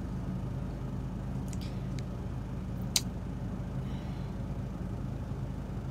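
Steady low hum inside a car, with one sharp click about three seconds in.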